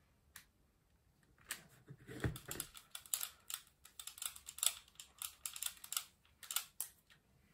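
Irregular light clicks, taps and small rattles of a hand screwdriver and box wrench working screws into a small model-car gearbox, starting about a second and a half in.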